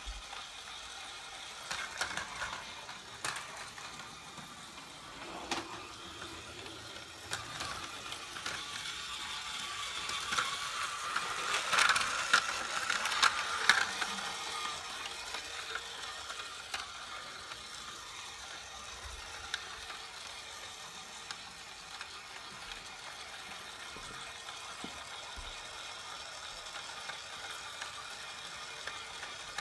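Small battery-powered motor and gears of a 3D-printed Duplo toy train whirring, with frequent clicks as it runs along the plastic track. It gets louder about ten to fourteen seconds in, as the train passes close by.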